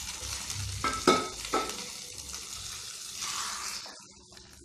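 Hot ghee with roasted cashews sizzling as it goes into freshly cooked pongal in an aluminium pressure cooker. A couple of sharp metal clinks ring about a second in. The thick rice-and-lentil mix is then stirred with a wooden spatula as the sizzle fades near the end.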